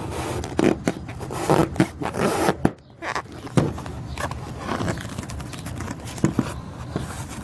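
A knife blade cutting and scraping through the multitool's retail packaging, a series of irregular rasping scrapes in the first half, then scattered sharp clicks.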